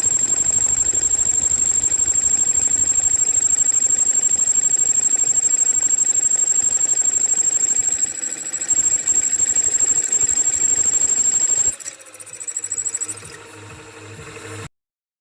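Boring or milling machine cutting the crankshaft bore in an AM6 engine crankcase: a steady, fast-pulsing machine sound with a high whine. About three-quarters of the way through it drops off and winds down, then cuts off suddenly near the end.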